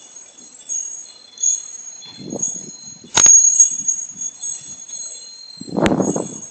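Metal wind chimes ringing on and off in strong gusting wind, with a sharp loud clack about three seconds in. Gusts rumble on the microphone a couple of times, the biggest near the end.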